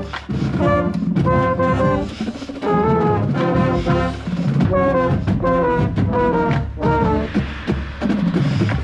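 Marching band brass section and drumline playing, with a mellophone close to the microphone in front of the rest of the band. The brass plays short accented phrases, then drops out just before the end, leaving the percussion.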